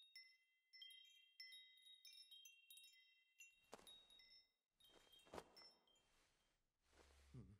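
Faint, sparse high chime notes from an animated film's soundtrack, each ringing out and fading. About halfway through two brief swishes cut in, and near the end there is a short rush of noise.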